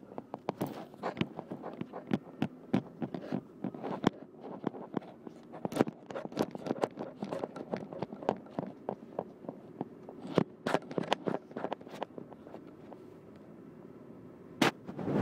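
Handling noise of a phone held against skin: irregular clicks, taps and rubbing right on the microphone, with a faint hum underneath. The clicking thins out near the end, then a few sharp taps come at the very end.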